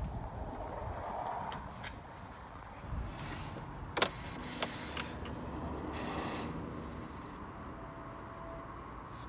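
Low outdoor background rumble with phone-handling noise while the scooter's engine is not running. There is a single sharp click about four seconds in, and short high chirps recur every few seconds.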